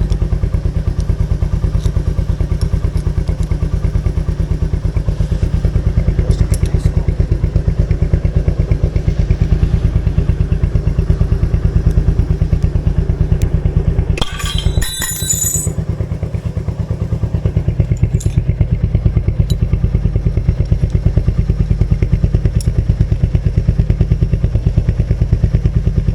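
Royal Enfield Meteor 350's single-cylinder engine idling steadily through its exhaust, an even, pulsing beat. A brief clatter cuts across it about fourteen seconds in.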